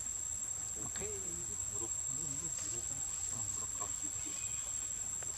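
Steady high-pitched insect drone, from cicadas or crickets, with faint wavering voices in the background.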